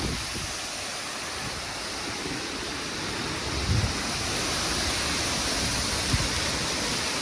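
Heavy monsoon rain pouring down with wind, a steady hiss that grows a little louder about halfway through, with a couple of brief low bumps.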